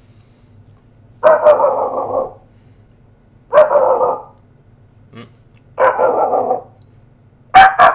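A man imitating a dog barking with his voice: four bark-like calls about two seconds apart, each drawn out to about a second.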